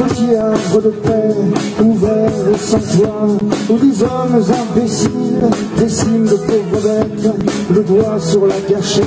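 Live rock band playing: electric guitars, one playing a lead line with bent, wavering notes, over a drum kit with cymbals.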